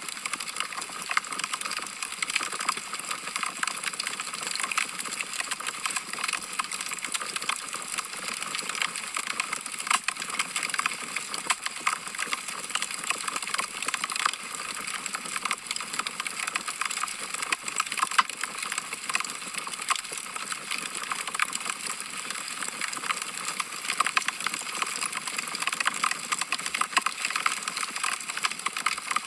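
Wood fire crackling in a fireplace: a steady hiss with many irregular sharp snaps and pops from the burning logs.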